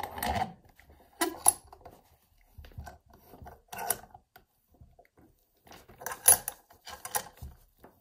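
A brass padlock being clamped into a small bench vise: short bursts of metal scraping and clicking as the lock is set between the jaws and the vise knob is turned, the loudest about six seconds in.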